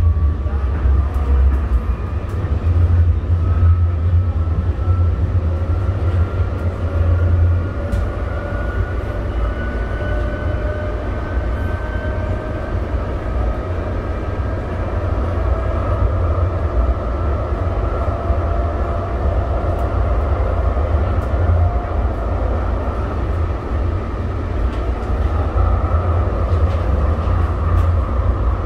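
Siemens SD160 light-rail car running along the track, heard from inside the car: a steady low rumble from the wheels and rails, with the traction motors' whine rising slowly in pitch over the first half as the train gains speed, then holding steady.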